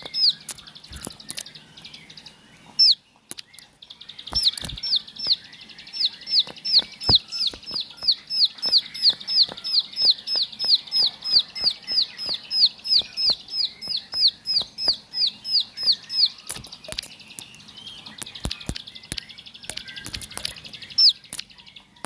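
Ciblek sawah, a small prinia, singing a long run of sharp, high, down-slurred notes, about three a second, with a short break about three seconds in. Faint clicks and flutters run under the song.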